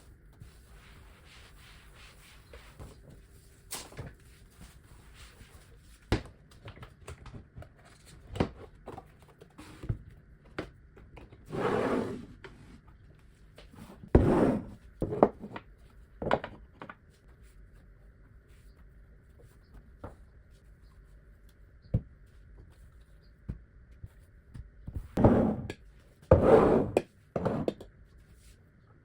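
Household objects being handled and set down: scattered knocks and clunks, with a few longer noisy handling sounds of half a second to a second, the loudest near the middle and near the end.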